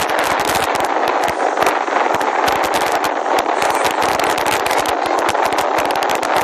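Loud, steady rushing noise from a seated zipline ride at speed, shot through with dense, irregular crackling clicks.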